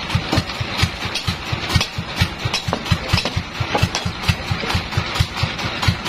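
A sawmill's engine running at a slow, even idle: a low chugging beat of about five pulses a second, with light clattering knocks over it.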